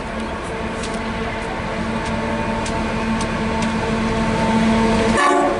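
Diesel locomotive GL109 approaching at the head of a train, its engine giving a steady low hum that grows louder as it nears.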